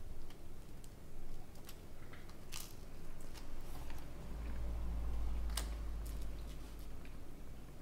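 Quiet eating at a table: a metal spoon clicking now and then against a bowl, with soft chewing. A low rumble comes in about halfway through and fades near the end.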